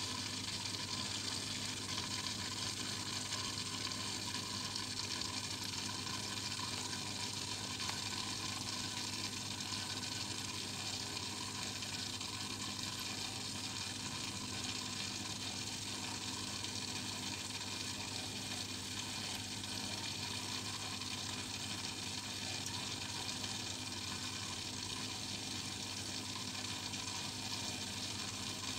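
Aquarium water and aeration bubbling, a steady, even hiss with a low steady hum underneath.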